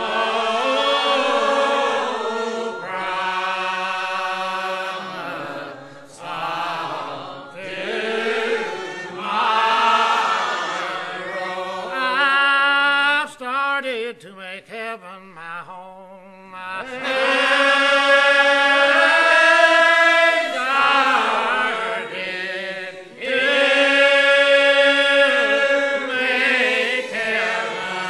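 Regular Baptist congregation singing a lined-out hymn without accompaniment, in long, slow, drawn-out notes. About halfway through, a single voice leads a line alone, and then the congregation comes back in together.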